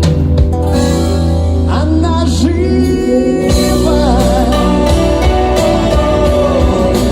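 Indie-rock band playing live, with guitars, bass and drums and a singing voice.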